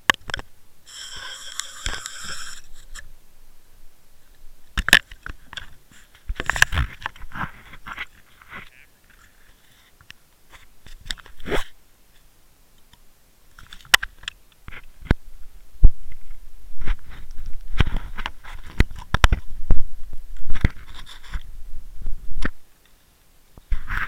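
Handling noise on the camera's own microphone: irregular knocks, clicks and rubbing as a hand and clothing brush against and grip the camera, busiest in the second half. A short high whine with overtones sounds about a second in.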